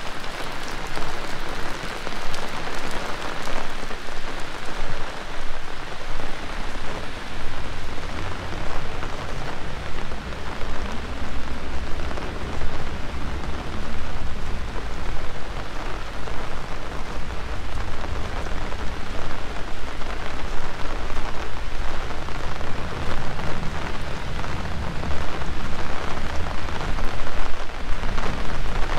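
Heavy rain falling, a steady dense patter of drops, with a low rumble underneath from about eight seconds in.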